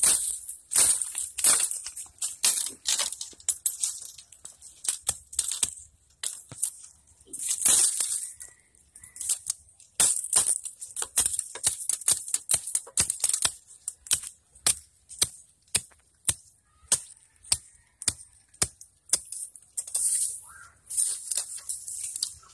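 Repeated sharp chopping strikes, about two a second, with rustling of dry leaves and twigs, as a bamboo shoot is hacked free at its base.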